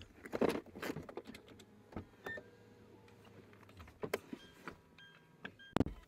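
Scattered clicks, knocks and rattles inside a Toyota Land Cruiser's cabin as it rolls to a stop, with a few short faint beeps. A faint low hum stops about two-thirds of the way through, and a louder knock comes near the end.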